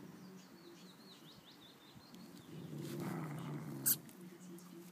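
Faint, high mouse squeaks in the first second or so, then a louder stretch of scuffling as the cat grabs the mouse, and one short, sharp, high squeak just before four seconds in as the cat bites it.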